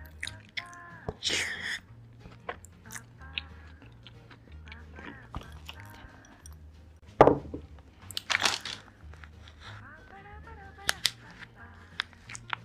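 Food being chewed and crunched close to the microphone in a string of sharp crunches, the loudest about seven seconds in, over background music.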